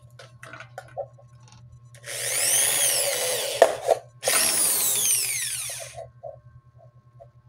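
Electric hand drill with a thin bit running in two short bursts, drilling small holes in a plastic bottle; each burst is a high whine that rises as the trigger is pulled and falls away as it is released. Light handling clicks come before the bursts and small taps after.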